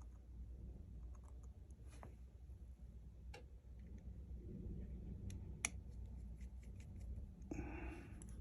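Faint, sparse clicks and small taps of hand tools and small phone parts being handled during iPhone repair work, over a low steady hum.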